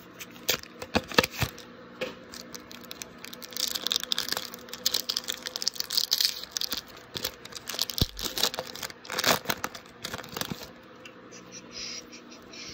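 A Pokémon booster pack's foil wrapper being torn open and crinkled by hand, with sharp snaps near the start and a long stretch of crinkling rustle. There is a low thump about eight seconds in, then more crackling.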